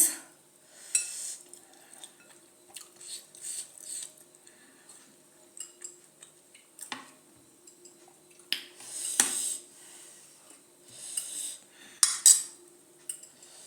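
Eating sounds: utensils clinking and scraping against dishes in short scattered clicks, with a few louder bursts near the middle and end.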